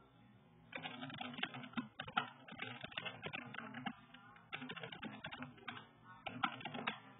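Fast typing on a computer keyboard: rapid runs of key clicks in several bursts with short pauses between them, starting about a second in.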